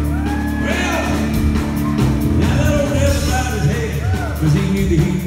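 Live country-rock band playing amplified through a PA: electric guitar, bass guitar and drum kit, with a man singing into the microphone.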